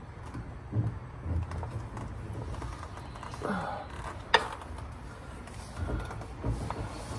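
Scattered light knocks and clunks from hands working a transmission and its shift linkage loose on a floor jack under a car, with one sharp click about four seconds in.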